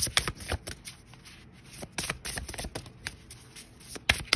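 A deck of large oracle cards being shuffled by hand, overhand: quick irregular clicks and rustles of cards slapping together, easing off for about a second before picking up again.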